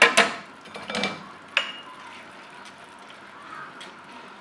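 Drained rice tipped from a plastic strainer into a frying pan of chicken in sauce, with a handful of sharp knocks and clatters in the first two seconds as the strainer is shaken out against the pan, then only a faint background hiss.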